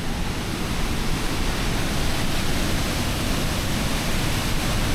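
Large waterfall's steady rush of falling water, a loud, even noise with a heavy low rumble.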